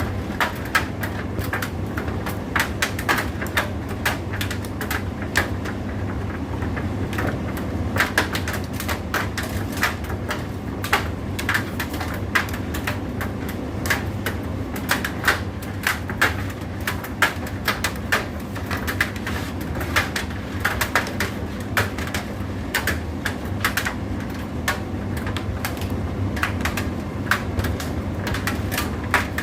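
Indesit IDC8T3 condenser tumble dryer running: a steady low motor hum with irregular clicks and knocks from the load tumbling in the drum.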